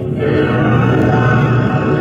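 Orchestral soundtrack music swelling louder a quarter second in, with many sustained instrument lines layered together.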